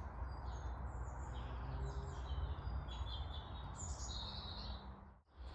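Small birds chirping and singing in the background over a steady low rumble; the sound drops out briefly about five seconds in.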